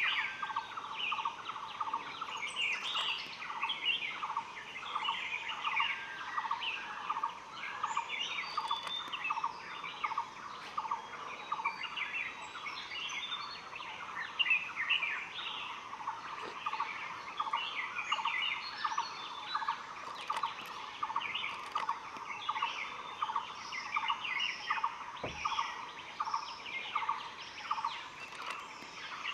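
Dense chorus of wild forest birds: a steady run of short chirps, several a second, with scattered higher notes over it.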